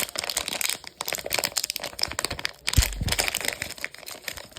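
Thin plastic packaging around a bundle of hockey cards crinkling and crackling as hands handle it and open it, with a dull thump a little under three seconds in.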